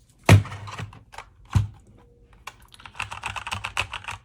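A mechanical keyboard's keys being pressed, starting with two heavy thuds and a few scattered clicks. About three seconds in, a fast, dense run of key clicks begins.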